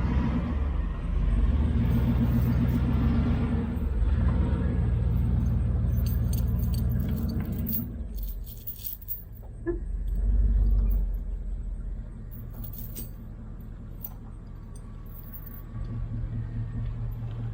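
Truck engine running and revving under load. It swells again about ten seconds in, then settles to a lower idle. Light metallic jingling and clinks come and go in the middle.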